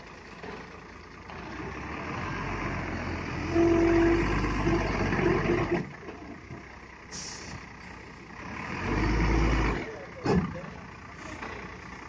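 Diesel engine of a Hino 500 concrete mixer truck revving up in two surges, the first dropping off suddenly about six seconds in. A brief hiss comes about seven seconds in, and a sharp knock just after the second surge.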